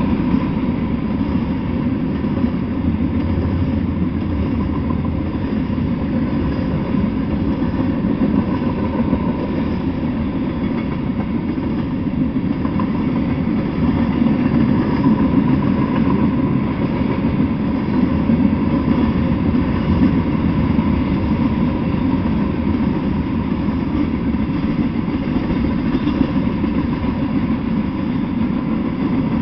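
Freight train cars rolling past, their wheels on the rails making a steady rumble.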